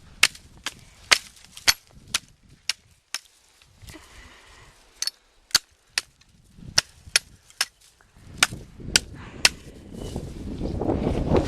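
Sharp chopping strikes of a blade stripping small branches off a cut sapling pole, about two a second, with a short pause partway through. Near the end the strikes stop and wind rumble on the microphone rises.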